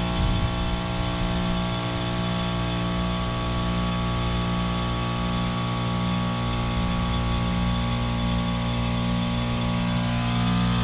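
Trane Odyssey commercial heat pump running steadily: a compressor's hum with several steady tones over a constant noise of air and refrigerant.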